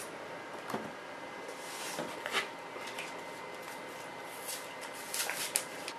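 Light handling noise: scattered small clicks and rustles, clustered near the end, as a camera flash and its AA batteries are handled and loaded. A faint steady hum runs underneath.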